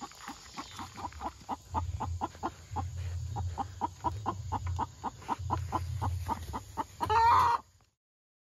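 Laying hens clucking in a covered crate: a rapid run of short clucks, about four or five a second. A louder, longer call comes near the end, then the sound cuts off abruptly.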